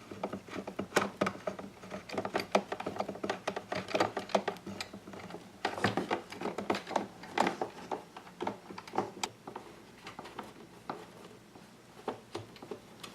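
Phillips head screwdriver driving screws with washers into the screw inserts of a lawn mower collection bag's metal frame: irregular clicks and taps of the bit and the parts being handled, in quick runs now and then.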